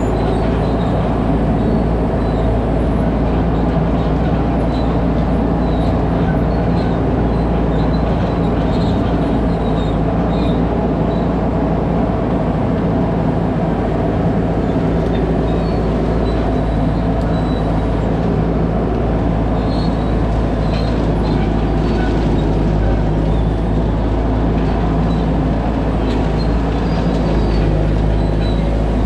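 A 2001 skid steer's engine running steadily at working speed, with short high squeaks from the machine scattered throughout.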